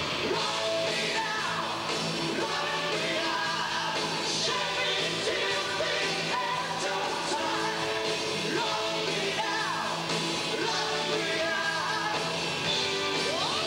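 Live hard rock band playing at full volume, with electric guitars, keyboards and drums and a male lead singer, heard from within the audience.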